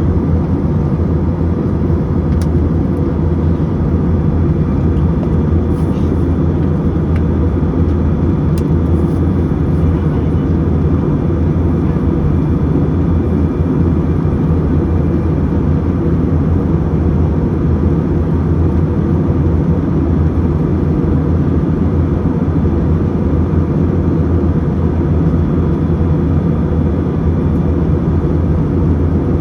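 Passenger airliner cabin noise in flight: a steady, deep drone of engines and airflow, with a few faint ticks in the first ten seconds.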